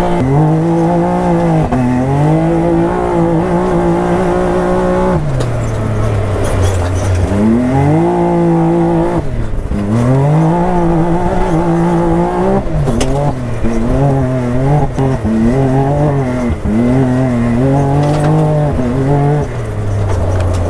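Polaris side-by-side engine driven hard: the revs repeatedly climb, hold steady for a second or a few, then drop off, several times over.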